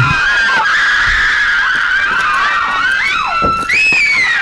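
A crowd screaming excitedly, with many high-pitched voices rising and falling over one another.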